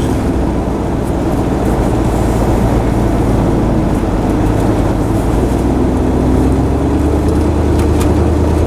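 Vehicle engine and road noise while driving: a steady low drone that grows slightly louder in the second half.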